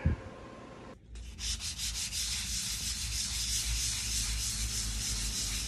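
Hand sanding of a filler-primed steel VW bus door with a blue sanding pad: a steady scratchy hiss of quick back-and-forth rubbing strokes, starting about a second in.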